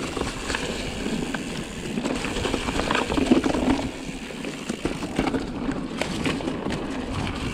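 Pivot Mach 5.5 mountain bike rolling along rooty dirt singletrack: steady tyre noise over dirt and fallen leaves, with frequent clicks and rattles as the bike goes over roots.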